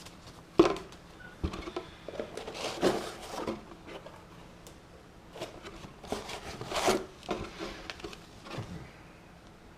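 Packaging and parts being handled during an unboxing: irregular rustles and knocks, the sharpest knock about half a second in and louder bursts of handling around three and seven seconds in.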